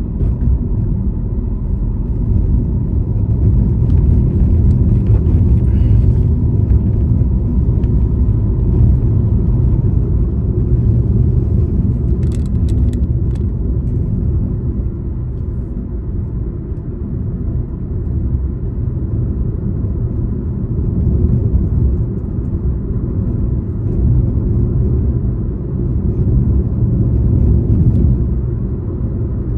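Car driving along a road: a steady low rumble of engine and tyre noise, with a few brief clicks about twelve seconds in.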